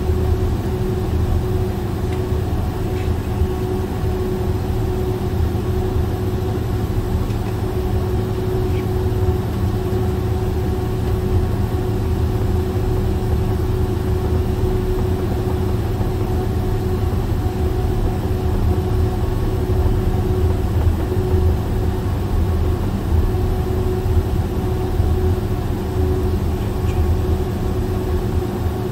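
Boeing 767-400's cabin noise while taxiing: the General Electric CF6 engines at idle give a steady hum over a low rumble, heard from inside the cabin.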